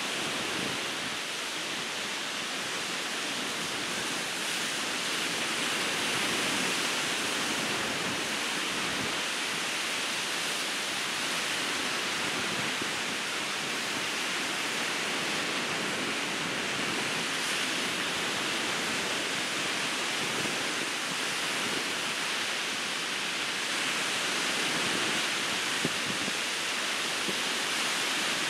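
Ocean surf breaking on a beach: a continuous rushing wash of waves that swells gently a couple of times.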